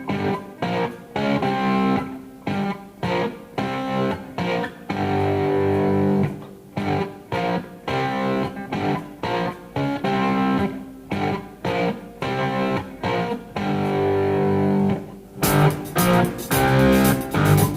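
Background music led by a plucked guitar, played in short rhythmic phrases. A fuller, brighter accompaniment comes in near the end.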